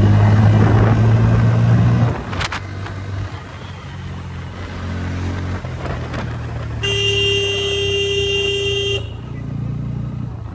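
Motorcycle engine running on the throttle, then easing off about two seconds in as the bike rolls on more quietly. About seven seconds in, a vehicle horn sounds one steady tone for about two seconds.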